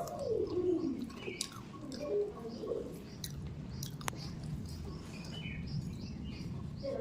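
Mouth sounds of eating, chewing with small wet clicks, with low cooing bird calls behind them. One call falls in pitch in the first second.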